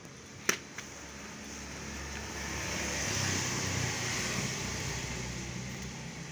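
A sharp click about half a second in, then a passing vehicle whose noise swells and slowly fades.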